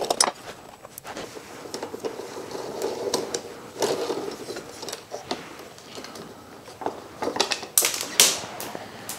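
Bolts being backed out of a motorcycle's plastic pannier mount plate with a hand tool: irregular metal clicks and clinks of the tool and the loose bolts. A few sharper clacks near the end as the plastic plate is pulled free of the frame.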